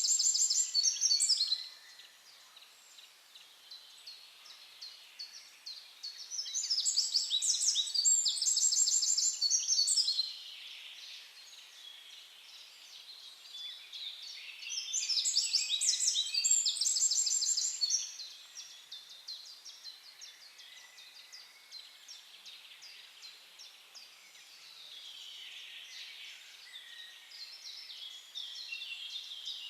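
Birdsong: a songbird repeats a loud, high, rapid trilled phrase lasting three to four seconds, three times about eight seconds apart, with fainter bird chirps between the phrases.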